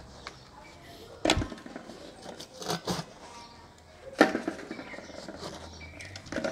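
Dried mud seal being knocked and chipped away from the rim of the aluminium lid on a barrel tandoor: a few sharp knocks with scraping between them, the loudest a little after four seconds.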